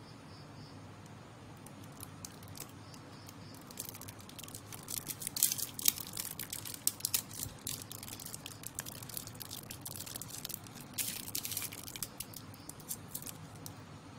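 Thin plastic straw wrapper crinkling and tearing as a folded drinking straw is pulled out of it. It comes as spells of sharp crackles, one about four seconds in and another a little past eleven seconds.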